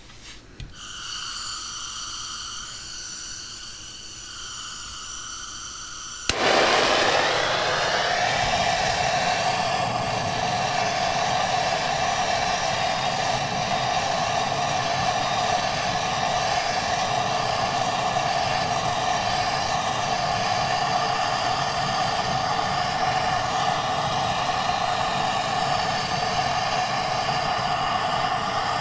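Hand-held gas blowtorch: gas hissing from the nozzle for about six seconds, then a sharp click as it lights and the flame catches with a brief rising whoosh. It then burns with a steady loud rushing sound as it is held on the pellets in a pellet stove's burn pot to light them.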